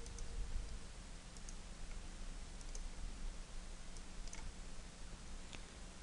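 A few faint, scattered clicks of a computer mouse and keyboard over a low steady hum.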